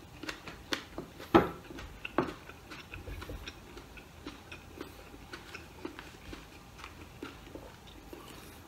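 Light clicks and taps from food being handled and eaten at the table: a few sharper ones in the first two seconds, the loudest about a second and a half in, then softer ticks about three a second.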